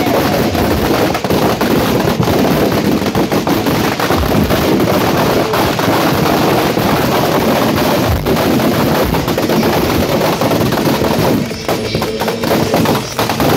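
Firecrackers packed inside a burning effigy going off in a dense, continuous rapid-fire crackle of sharp bangs, thinning out about eleven seconds in.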